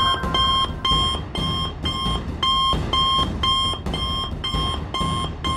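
Electronic alert beeping steadily, about two short high beeps a second, from a cartoon wrist communicator sending out an emergency call for help.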